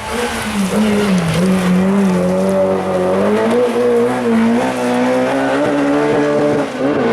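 Rally car engine screaming at high revs, held close to the rev limiter with small wobbles in pitch. It grows louder over the first second as the car approaches and dips briefly near the end.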